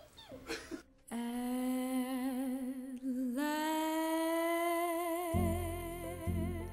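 A woman singing, open-voiced with vibrato: a long held note from about a second in, then a step up to a higher note held to the end. Low instrumental accompaniment comes in underneath about five seconds in.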